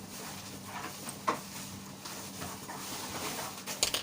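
Room tone with a steady low hum, a sharp click about a second in and a few quick clicks and rustles near the end, like small objects being handled.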